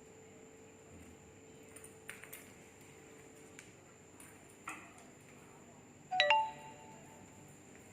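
A single short bell-like chime about six seconds in, ringing with several clear tones that fade within about half a second, after a few light clicks and taps.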